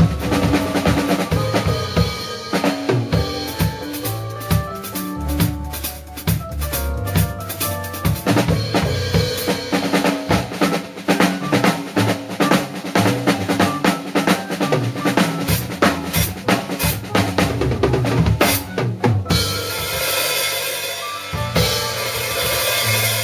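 Drum kit ensemble playing a Latin-jazz groove, with bass drum, snare and rimshots over a pitched backing part. For the last few seconds the cymbals take over in a sustained wash.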